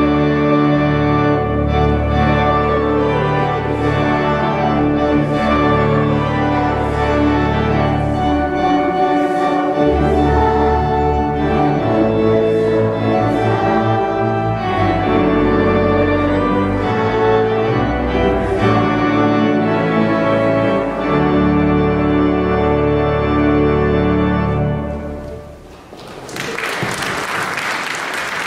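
Girls' choir singing with pipe organ and piano accompaniment, the organ holding deep bass notes under the voices. The music ends about 25 seconds in, and audience applause starts a second later.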